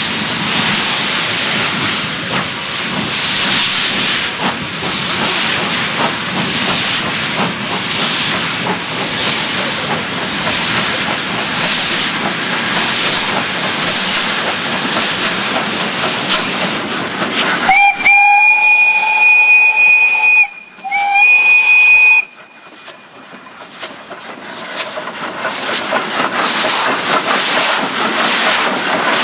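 Italian-built Mallet steam locomotive working hard upgrade, with heavy exhaust beats at about one a second. About two-thirds of the way through it sounds its two-note steam whistle twice, a long blast then a short one. The engine and coaches then roll past close by, growing louder.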